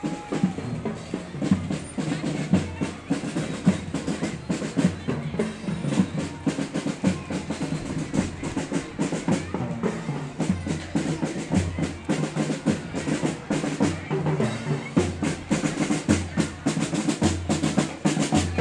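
A school marching band's drums playing a marching cadence, with rapid snare hits over low bass-drum beats.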